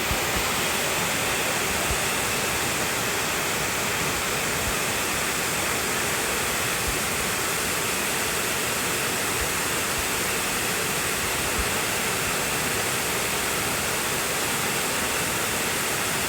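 Waterfall pouring steadily, a constant even rush of falling water.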